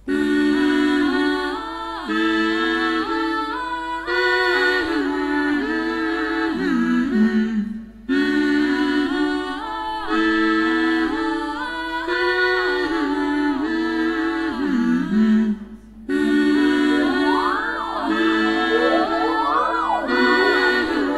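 A short melodic phrase on a synthesizer keyboard, repeated by a loop pedal about every eight seconds, with a brief drop each time the loop restarts. From about 16 seconds in, rising and falling swooping glides are played over the loop.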